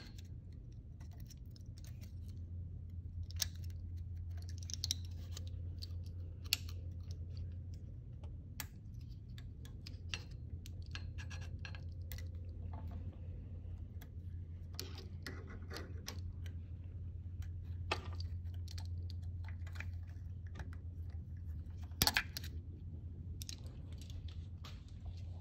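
Small metal clicks and scrapes of a precision screwdriver and pick prying a spiral retaining ring out of an ORI strut's lower mount, with a sharper click near the end. A steady low hum runs underneath.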